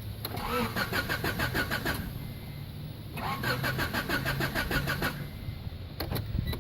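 A 1990 Honda Accord's four-cylinder engine being cranked by the starter in two tries of about two seconds each, turning over in an even rhythm without firing. It is the hot no-start: the engine cranks but gets no fuel, which the owner traces to a failing main fuel-pump relay that leaves the pump unpowered.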